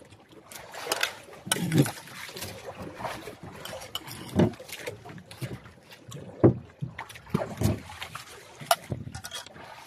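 Wind and sea noise around a small outrigger boat, broken by irregular close knocks and scrapes, the loudest about six and a half seconds in.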